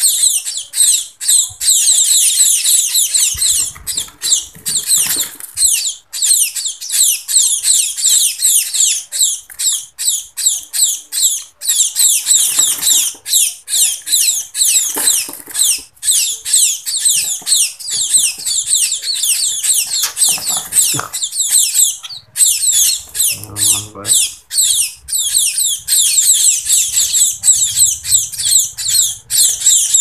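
Munia (emprit) fledglings begging for food: a dense stream of rapid, high-pitched chirps with only brief breaks, the calls of hungry chicks waiting to be hand-fed.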